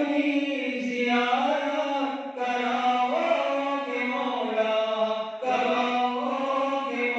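Men chanting an Urdu munajat, a devotional supplication, in long melodic held phrases; new phrases begin about a second, two and a half seconds and five and a half seconds in.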